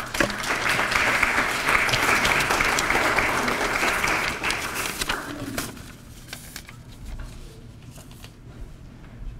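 Audience applauding, dying away after about five and a half seconds, followed by a few faint knocks.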